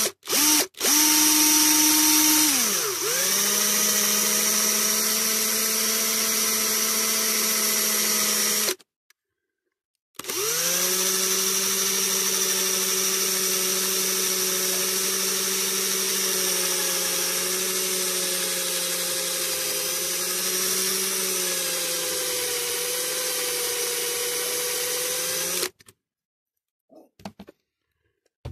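Cordless drill drilling into a rivet post of a die-cast metal toy truck: a few quick trigger blips, then a steady motor whine that drops in pitch about three seconds in as the bit bites. It stops for about a second and a half, then runs again steadily for about fifteen seconds before stopping near the end.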